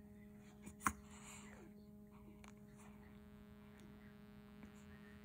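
Quiet steady electrical hum, with one sharp click about a second in followed by a brief soft rustle.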